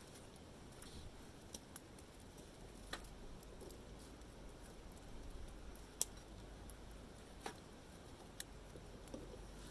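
Wood campfire crackling quietly, with scattered sharp pops and snaps, the loudest about six seconds in.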